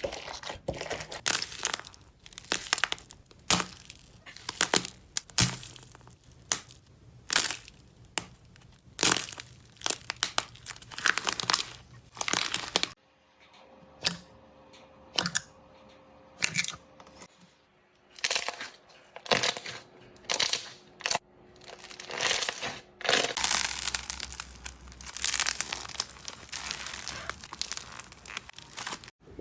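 Slime being pressed and pulled by hand, making rapid runs of sharp crackles, pops and tearing sounds. The texture changes twice, at clear cuts between clips.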